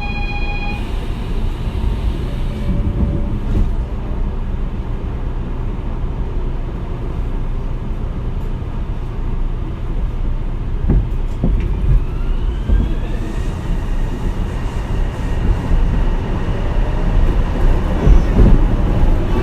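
Port Liner 2000-series rubber-tyred automated guideway train running with a steady low rumble, after a short electronic tone at the very start. About twelve seconds in, the motor whine rises in pitch as the train accelerates, then holds steady.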